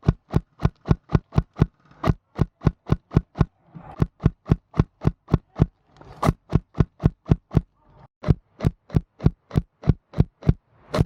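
A steady run of sharp clicks, about four a second, broken by a few short pauses.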